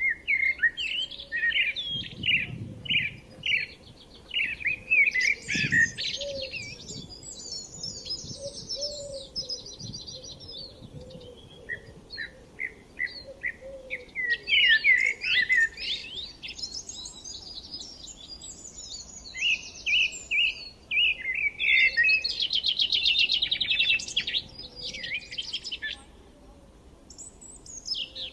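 Songbirds singing: phrases of short repeated chirps alternating with fast trills, one after another, with a short lull near the end.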